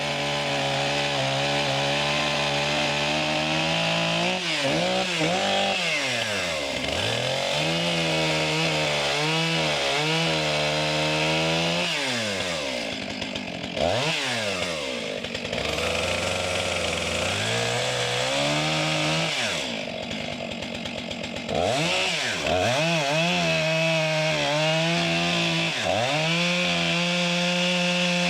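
Stihl chainsaw at high revs, cutting pine rounds. Its pitch sags repeatedly as the chain bites into the wood and climbs back as it frees, and it briefly drops off throttle twice.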